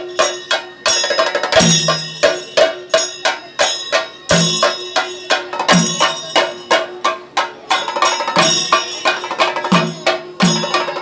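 Temple festival drum band: several cylindrical drums beaten in a fast, dense rhythm, with a deeper stroke every second or two, over a steady ringing tone.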